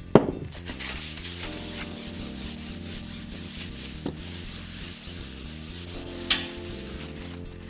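Paper towel rubbed back and forth over a work surface by gloved hands, a continuous scrubbing hiss as the table is wiped clean. A sharp knock sounds just after the start, a lighter tap about four seconds in, and a short click about six seconds in.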